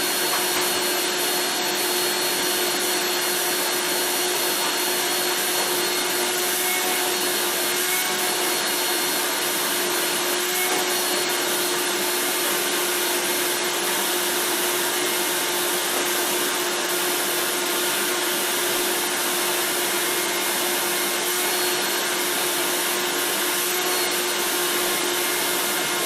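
Eureka The Boss Mighty Mite II canister vacuum cleaner (model 3621, 7-amp motor) running steadily at full speed, a loud rushing of air under a constant high whine.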